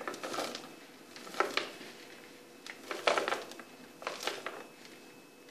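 Dry muesli of rolled oats and whole almonds being swept by hand out of a plastic bowl into a plastic storage container, rustling and spilling in about four short bursts.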